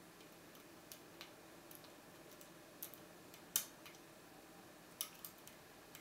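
Irregular small metal clicks of a hook pick working the pin stack of a brass five-pin Ifam euro cylinder, with one louder click about three and a half seconds in.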